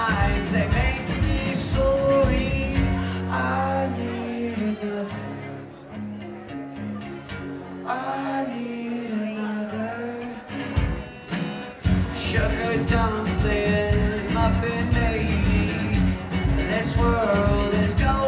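Live band playing with violin and acoustic and electric guitars over a steady beat. About three seconds in, it drops to a quieter passage of held bass notes and melody without the beat, then the full band comes back in about twelve seconds in.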